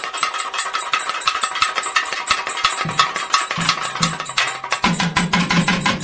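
Festival music: fast, dense drumming over a steady held tone, with a deeper sound joining about five seconds in.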